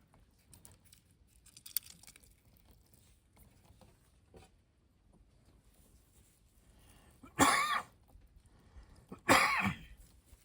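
A person coughs twice, a couple of seconds apart, near the end, after a quiet stretch of faint small clicks.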